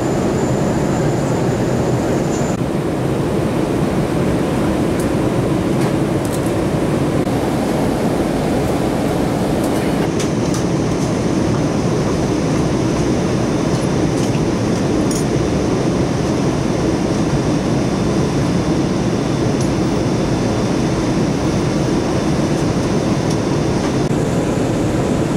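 Steady airliner cabin noise from a window seat: jet engines and rushing airflow, even and unbroken as the plane descends through cloud. A faint high whine stops a few seconds in and another runs through the middle.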